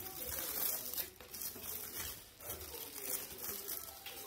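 Honeycomb kraft paper packing wrap rustling and crinkling as it is handled and lifted out of a cardboard box.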